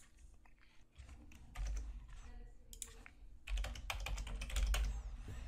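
Typing on a computer keyboard: runs of quick key clicks as login details are entered, fairly quiet, with a faint low hum underneath.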